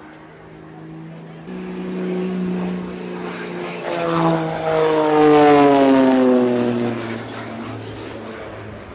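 Propeller airplane flying past. Its engine note swells and then drops in pitch as it passes, loudest a little past the middle, then fades to a lower drone.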